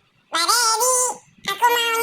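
A high-pitched, childlike cartoon voice making two long, wavering vocal sounds, about a second each, with a short break between them and no clear words.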